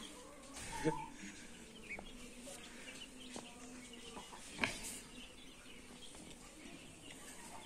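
Faint, occasional clucking from chickens, with a couple of short knocks, the clearest about four and a half seconds in.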